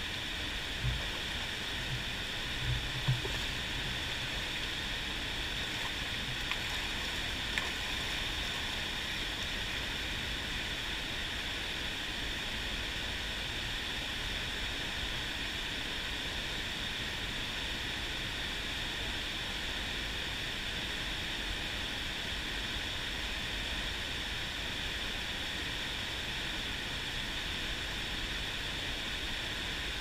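Steady rush of a fast-flowing mountain stream, with a few light knocks in the first several seconds.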